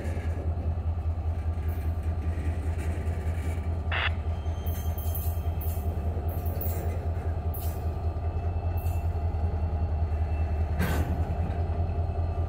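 Freight cars rolling slowly past on the rails, shoved by a Norfolk Southern SD40-2 diesel locomotive, with a steady low rumble and engine drone throughout. Two short metallic clanks stand out, about four seconds in and again near the end.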